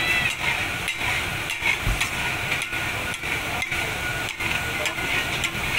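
Taka tak being cooked: a flat steel spatula clacking and scraping on a large iron tawa as chopped mutton is tossed, in irregular clacks about twice a second over a steady sizzle of frying.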